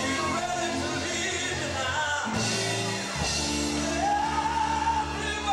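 Male gospel quartet singing live with a band backing them, the voices and instruments echoing in a church hall; a voice holds one long note about four seconds in.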